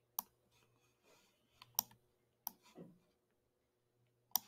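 Computer mouse button clicking, about four short, sharp clicks spread over a few seconds.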